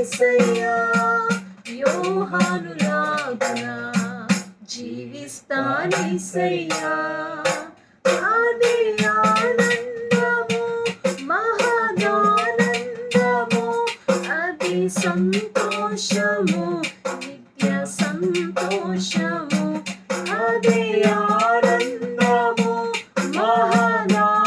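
A woman singing a Telugu Christian worship song, with hand claps keeping a steady beat.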